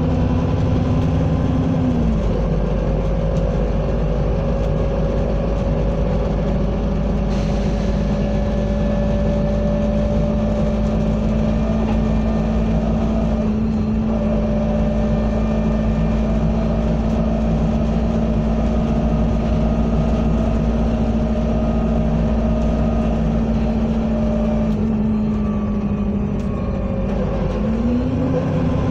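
Bus engine and drivetrain running, heard from inside the passenger saloon, with a steady whine over the engine rumble that drops slightly in pitch about two seconds in and rises again near the end.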